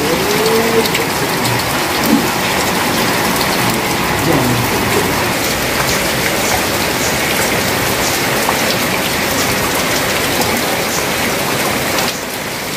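Steady rain falling, drops splashing into a puddle and rainwater dripping off a roof edge. It is slightly softer near the end.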